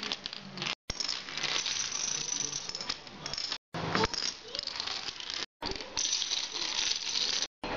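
Dominoes toppling one after another in long chains on a tabletop, a rapid clattering run of clicks. It breaks off four times with a brief dead silence.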